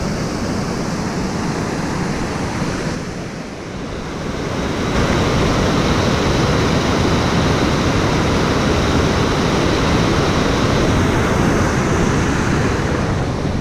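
Small waterfall and rocky stream rapids rushing steadily, louder from about five seconds in as the white-water rapids come close.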